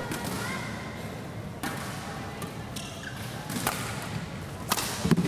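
Badminton rally: sharp racket strikes on a shuttlecock, roughly a second apart, over the hum of a sports hall.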